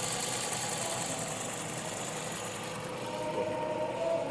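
Nissan Sentra's four-cylinder engine running steadily at idle. The engine suffers from sporadic misfires.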